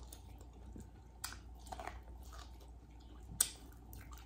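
Soft, close-miked chewing of a mouthful of corn on the cob, with a few sharp mouth clicks and smacks, the loudest about three and a half seconds in.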